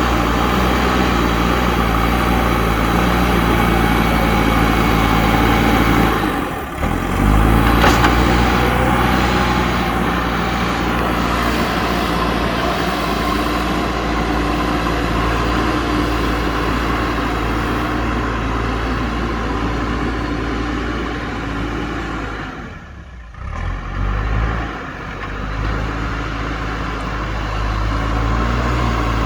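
JCB backhoe loader's diesel engine running steadily while working. The sound drops away briefly twice, about a quarter of the way in and again about three-quarters through.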